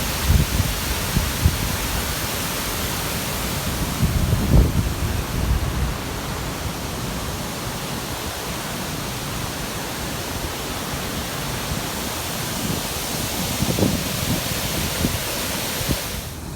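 Steady roar of a waterfall heard close up, a dense hiss of falling water, with a few low thuds on the phone's microphone. The rush cuts off abruptly near the end.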